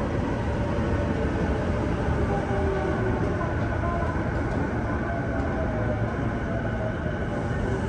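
JR East E233 series 2000 electric train, heard from inside the car, running along a station platform: steady wheel and rail rumble, with the inverter and traction motor whine falling slowly in pitch as the train brakes into the station.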